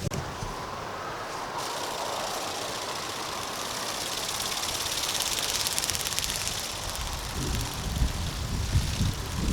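Electric wing-flapping motor of a remote-control flying bird toy, running with a rapid buzzing flutter, while gusts of wind buffet the microphone in the last couple of seconds.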